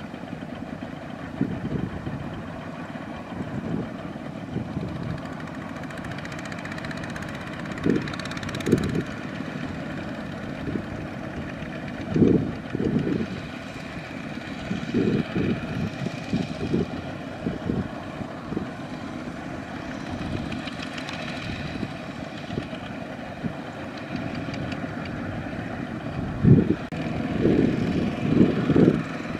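Several power tiller diesel engines running together as the tillers pull loaded trailers across a soft field, with irregular short, louder low thumps and surges, several close together near the end.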